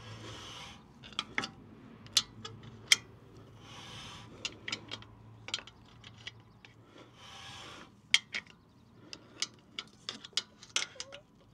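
Irregular sharp metal clicks and ticks from a screwdriver worked through the access hole of a rear brake rotor against the parking brake shoe adjuster wheel on a Land Rover LR3/LR4. Three breaths, close to the microphone, fall between the clicks.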